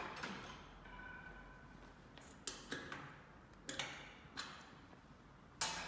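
Scattered clicks and light knocks as a heavy red battery cable and its terminal hardware are handled and fitted at a battery bank's positive terminal, with the loudest knocks near the end.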